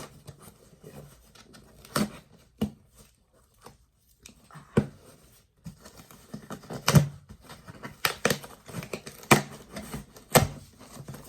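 A cardboard package and toy box being handled and opened by hand: scattered sharp clicks, taps and rustles, with a short lull about four seconds in.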